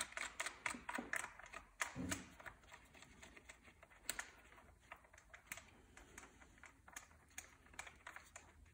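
Faint, irregular light clicks and ticks as the black plastic air filter cover on a Bobman's engine is unscrewed by hand, coming thick and fast for the first few seconds, then sparser.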